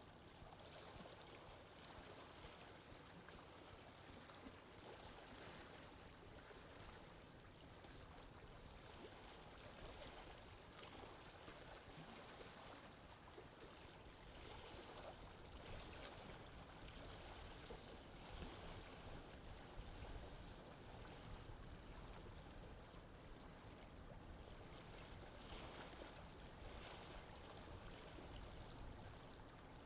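Faint, steady lake water sounds, a soft even wash of moving water with gentle swells.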